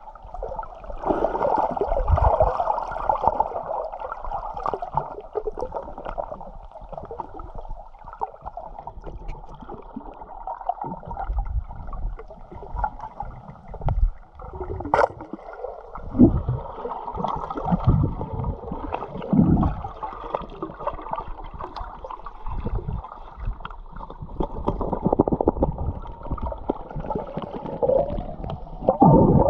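Muffled water sloshing and gurgling heard from underwater through an action camera's waterproof housing, with irregular low thuds from a swimmer's movements and one sharp click about halfway through.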